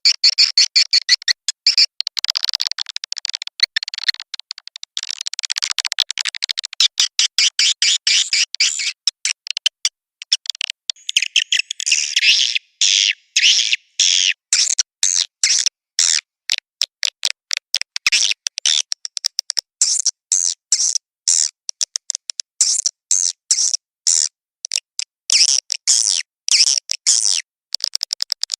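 Recorded swiftlet calls: rapid, high chirping twitters in quick stuttering runs. It is a swiftlet lure call, meant to draw the birds into a nesting house.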